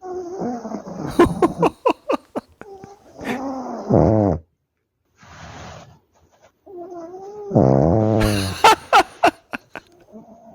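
Sleeping pug snoring: a run of wavering, squeaky pitched snores and snorts with sharp clicks, in several breaths separated by short pauses, loudest about eight seconds in.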